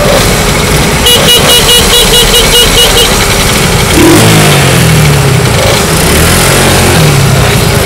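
Several small mopeds running close by, loud throughout. A rapid run of about ten short beeps comes about a second in, and from about halfway the engines rev up and down as the bikes move off.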